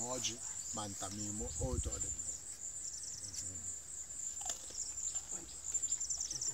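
Insects trilling steadily in the surrounding bush: a continuous high-pitched, finely pulsing buzz.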